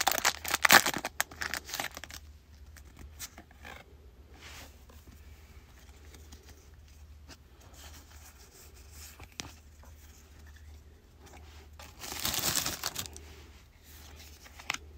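Foil Pokémon booster pack wrapper being torn open and crinkled for about two seconds, then quiet handling of the trading cards as they are slid apart, with another brief loud rustle about twelve seconds in.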